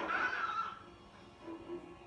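Horror-film soundtrack played from a television: a woman's sharp shrieking cry in the first half second or so, over a sustained, tense orchestral score that carries on after it.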